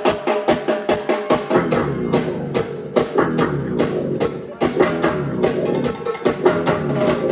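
Live band music driven by a drum kit, with rapid drum hits over sustained pitched tones.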